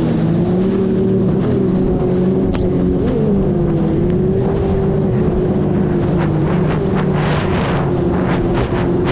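Personal watercraft (jet ski) engine running at a steady pitch, dipping briefly about three seconds in, with water splashing over the last few seconds.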